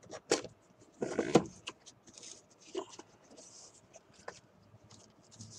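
Cardboard phone box being opened by hand: the inner box sliding out of its sleeve with scraping and rustling, among scattered taps and knocks, the loudest cluster about a second in.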